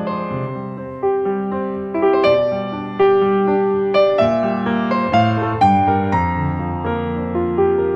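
Background piano music: a slow melody of struck notes that each ring out and fade, a new note about every half second to a second.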